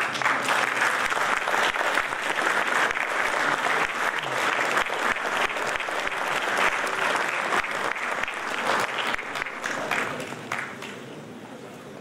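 Audience applauding: dense clapping that starts suddenly and dies away about ten seconds in.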